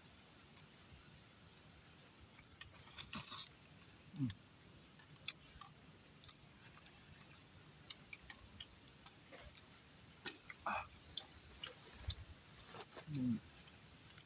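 Crickets trilling in on-and-off stretches, with scattered small clicks and knocks among them.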